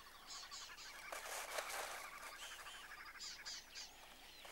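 Wild birds calling: a scatter of short, high chirps and whistled notes, and a buzzy rattling call that starts about a second in and lasts roughly two seconds. Faint.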